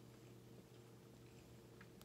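Faint closed-mouth chewing of a bagel sandwich, with a few small mouth clicks, the clearest near the end, over a steady low hum.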